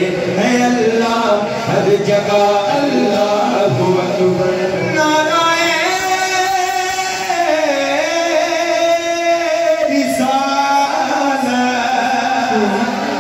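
A man singing an Urdu naat into a microphone, drawing out long held notes that waver and slide in pitch, with a long high note in the middle.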